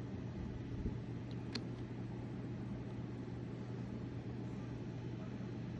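Steady low hum and hiss of room background noise, with one faint click about one and a half seconds in.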